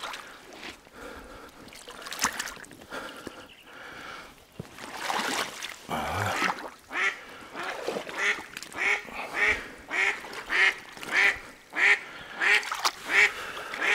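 Water splashing as someone wades knee- to thigh-deep through flooded swamp with a pole, then a hen duck, the tethered decoy, quacking in a steady series of about two quacks a second through the second half.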